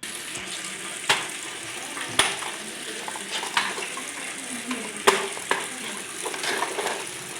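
Water hissing and splashing as the Samsung Eco Bubble washing machine fills, with a few sharp clicks and knocks from the machine, the strongest about a second, two seconds and five seconds in.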